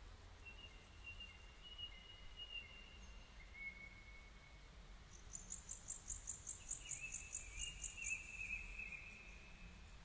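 Songbirds calling: thin, drawn-out whistled notes, then from about five seconds in a rapid high ticking trill that stops near the nine-second mark, overlapping a wavering whistle that runs on to the end.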